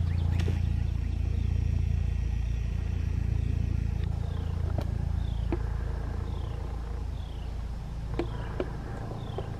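Diesel engine of an on-track maintenance-of-way machine idling with a steady low drone. Short descending bird chirps repeat over it in the second half, with a few light clicks.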